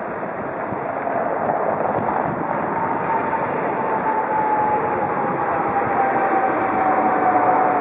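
A vehicle passing close by: a steady rumble that grows louder, with a whine that starts about three seconds in and slowly falls in pitch.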